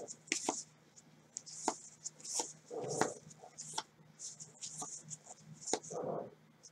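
Baseball cards slid one by one off a stack by a gloved hand: a string of soft swishes and light clicks, a few each second.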